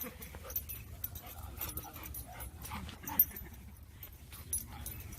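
Dogs whimpering and yipping in short scattered sounds, with one sharper, louder sound about three seconds in.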